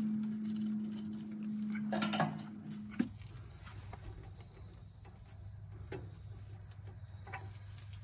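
Small clicks and rustles of gloved hands handling wires and terminals on a generator's alternator. A steady hum sits under the first three seconds and stops abruptly, followed by a few faint, scattered clicks.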